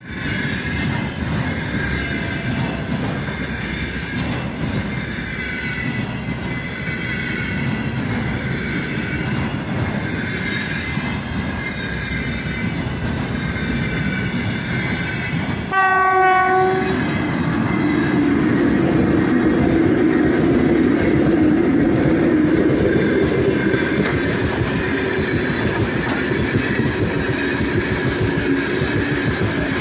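Freight trains passing close by: a steady rumble and clatter of wagon wheels on the rails. About halfway through, the approaching 3ES5K electric locomotive gives one horn blast of about a second. After that, its train of open gondola wagons rolls past, louder than before.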